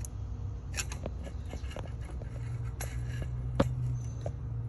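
Scattered small clicks and scrapes of hand tools being handled around an engine bay, over a steady low hum.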